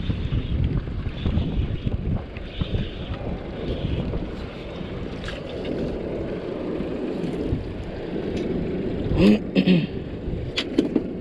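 Wind buffeting the microphone over the steady low rumble of a small boat at sea. About nine seconds in there is a short, loud pitched sound in two parts, then a couple of sharp clicks near the end.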